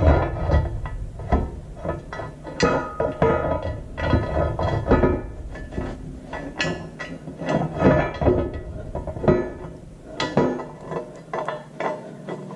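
Background music with scattered light metal clinks and knocks as a bolt is started by hand through the engine rear plate.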